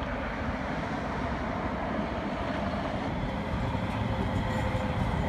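A QLine electric streetcar moving along its street track amid city traffic, a steady rumble with a faint steady hum that comes in partway through. The sound grows slightly louder toward the end as the streetcar draws near.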